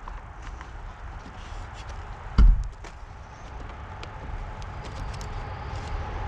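A single loud thump about two and a half seconds in, among light clicks and taps of handling, over a steady low rumble of road traffic that grows louder near the end.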